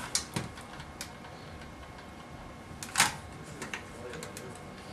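A few sharp plastic clicks and ticks as a small flathead screwdriver pries and twists at the laptop's plastic casing; the loudest click comes about three seconds in.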